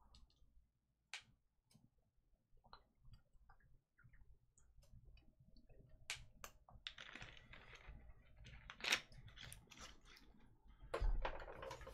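Faint, scattered small clicks and taps that grow busier about six seconds in, with a light rustle and a low bump near the end.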